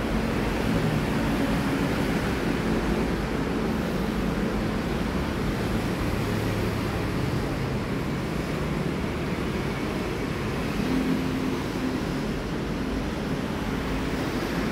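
Steady outdoor background noise, a low rumble of distant road traffic with faint low hums that come and go, and no train yet passing.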